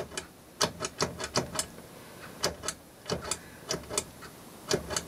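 Push button on an electronic electricity meter clicking as it is pressed again and again, in quick runs of about four clicks a second, stepping the display through its menus.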